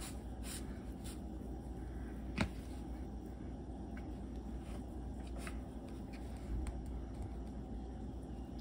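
Faint handling noise of fingers working a new rubber O-ring onto a brake valve piston: soft rubbing and small clicks, with one sharper click about two and a half seconds in, over a steady low hum.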